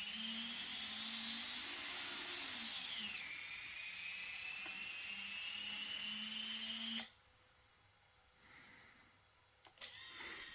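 FPV drone's brushless motors whining at high pitch, the pitch rising and falling with throttle, then cutting out suddenly about seven seconds in. A click follows and the whine comes back near the end. The uploader asks about strange motor sounds at higher stick inputs, cause unknown.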